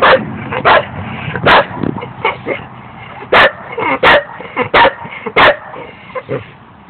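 A dog barking: about seven loud, short barks at uneven intervals, with softer barks in between.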